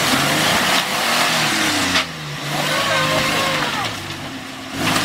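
Off-road SUV engine revving hard as it drives through deep mud. It is loud and noisy for the first two seconds, eases off for a couple of seconds, and revs up again near the end.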